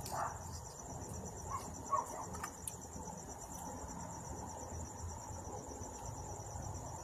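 Steady, high-pitched insect trill pulsing rapidly throughout, with a few faint short clicks and scrapes in the first couple of seconds.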